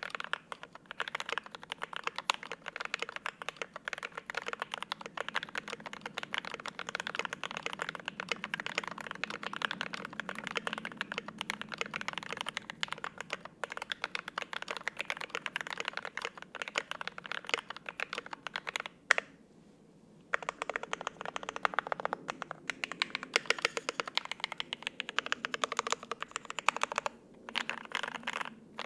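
Steady, fast typing on a GMMK Pro mechanical keyboard with lubed and filmed FFFF linear switches, double-shot ABS keycaps and an aluminium plate. Keystrokes come in quick, dense runs, broken by a pause of about a second two-thirds of the way through.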